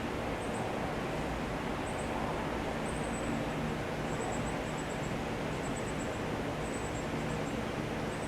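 Steady low hum with a few faint held tones underneath, while small birds chirp in short high trills every second or so.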